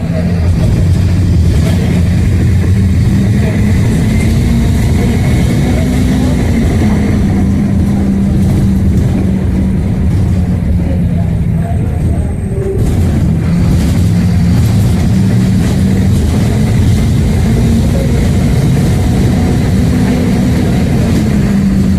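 A motor vehicle's engine running steadily, its pitch rising and falling slightly, over a continuous hiss.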